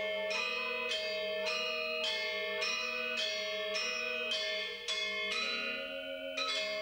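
A pair of Balinese gender wayang, bronze-keyed metallophones over bamboo resonators, playing a quick interlocking melody of struck notes, about three or four a second, each ringing on under the next. A bamboo suling flute plays along with them.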